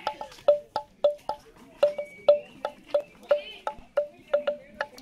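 Background music: a quick, even rhythm of wood-block-like percussion, about four strikes a second on two alternating pitches.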